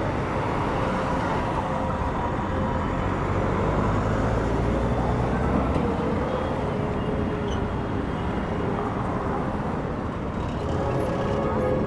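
City street traffic: motor vehicles running and passing, a steady wash of engine and tyre noise with a faint engine hum in it.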